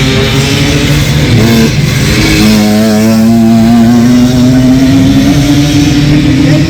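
Two-stroke engine running under throttle; its pitch drops briefly, then climbs steadily as it revs up.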